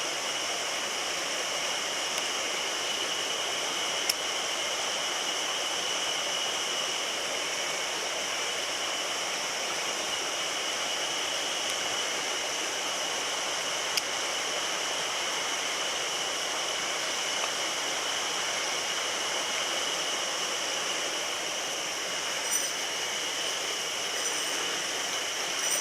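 Mountain stream water rushing steadily, an even hiss with no let-up. Two brief sharp clicks sound over it, about four seconds in and about fourteen seconds in.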